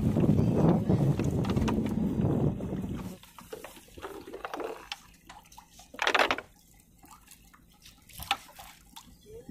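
A loud steady rumble with a low hum for about three seconds, cutting off suddenly; then seawater lapping and dripping against the side of a small fishing boat, with a louder splash about six seconds in and a smaller one near the end.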